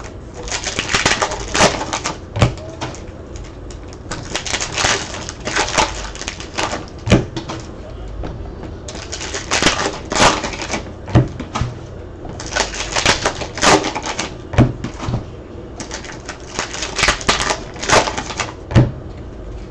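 Trading card packs being torn open and the cards handled: crinkling and rustling of foil wrappers and card stock in short bursts every second or two, with sharp snaps in between.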